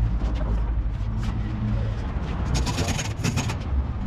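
A metal knife blade scraping in quick strokes for about a second, starting about two and a half seconds in, over a steady low rumble.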